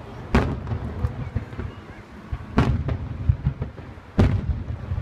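Aerial firework shells bursting: three loud booms, just after the start, just past halfway and near the end, each trailing off in a low rumbling echo.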